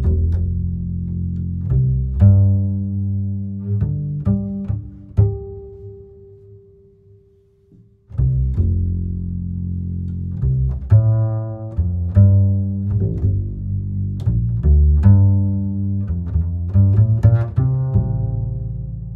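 Instrumental music: plucked notes that ring and die away over a low bass line. It fades down to almost nothing around seven seconds in, then starts again abruptly about eight seconds in.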